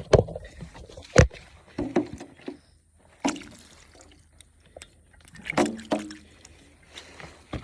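Irregular sharp knocks and thuds, about five spread over several seconds, some with water sloshing.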